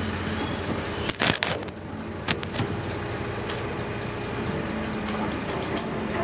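Excavator engine running steadily, with a loud burst of noise about a second in and several sharp knocks after it.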